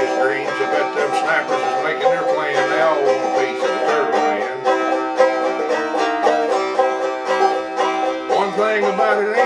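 Banjo played solo: an instrumental break of quickly picked notes in a bluegrass-style song.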